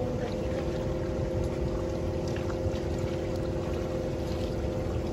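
Small boat under way at low speed: a steady motor hum with the wash of water and a low rumbling noise over it.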